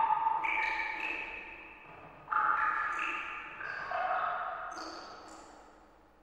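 Background music of soft bell-like chiming notes, each struck and slowly ringing away, several overlapping at an unhurried pace; it fades out near the end.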